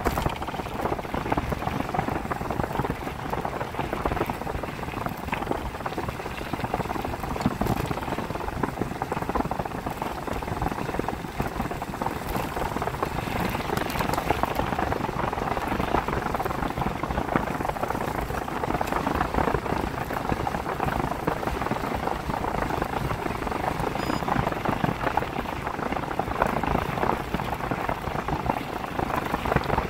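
Bicycle tyres rolling over a wet dirt forest track, a steady gritty crackle with rumble from the handlebar-mounted camera.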